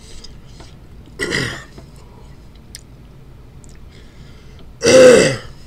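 A man coughing twice: a short cough about a second in and a louder, harsher one near the end. The coughs are a reaction to the chili heat of a super-hot Reaper-pepper candy filling.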